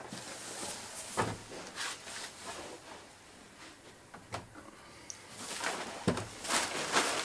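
Protective wrapping paper rustling and crinkling as it is peeled back and lifted off an amplifier, loudest near the end. A few soft knocks come as the heavy unit is handled.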